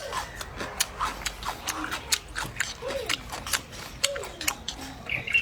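Close-up crunchy chewing of pickled jiaotou (Chinese onion bulbs), a rapid irregular run of sharp crunches with mouth smacks.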